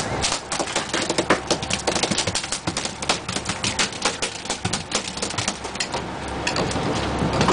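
A freshly landed tuna beating its tail against a boat's deck: a rapid, uneven run of sharp slaps and knocks.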